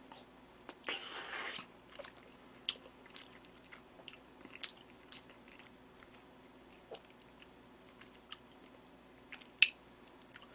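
Close-up chewing of a mouthful of soft rice mixed with soft-boiled egg: scattered wet mouth clicks and smacks, with a short hiss about a second in and a sharper click near the end.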